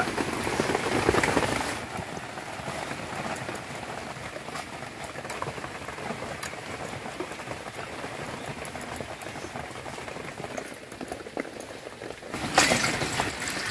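Ash gourd leaves being washed by hand in a steel bowl of water: splashing, and water dripping back into the bowl as the leaves are lifted out. Louder for the first couple of seconds and again near the end.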